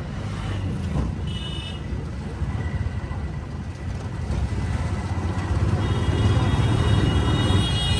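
Auto rickshaw running along a town street, heard from the passenger seat: a steady engine and road rumble that grows louder in the second half. A higher tone sounds briefly about a second and a half in and again from about six seconds in.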